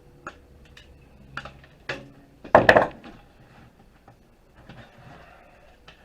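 Scattered clicks and knocks of parts being handled and cut loose inside a desktop computer case, with a short loud clatter about two and a half seconds in.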